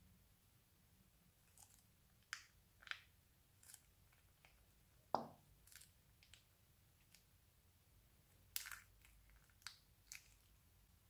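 Crunchy slime being handled, giving scattered soft crackles and pops. The loudest is a single pop with a falling pitch about five seconds in, and a small cluster of crackles comes near the end.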